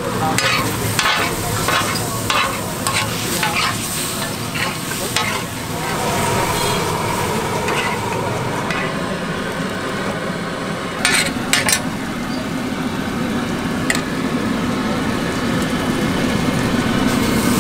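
Chopped liver frying in oil on a flat metal tawa griddle, sizzling steadily, while a metal spatula is stirred through it, scraping and clinking against the griddle. The spatula strokes come thick and fast for the first several seconds, with a few sharper clanks later.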